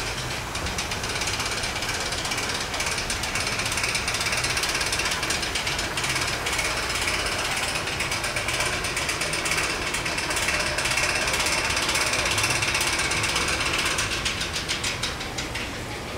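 Fast, continuous mechanical ratcheting clatter from an amusement ride's machinery. It grows over the first couple of seconds and eases off near the end.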